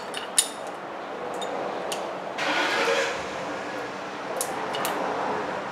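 Brake caliper piston compressor tool being worked by hand against the pads, pushing the caliper piston back into its bore. Sharp metal clicks come a few at a time, with a short rasp about two and a half seconds in.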